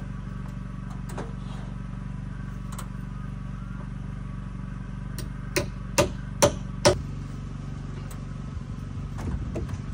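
Hammer driving nails into the wooden porch framing: a few light taps, then four hard blows about half a second apart. A steady engine hum runs underneath.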